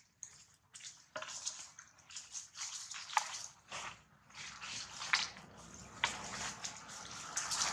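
Dry leaf litter rustling and crackling in scattered, irregular short clicks as macaques move over it.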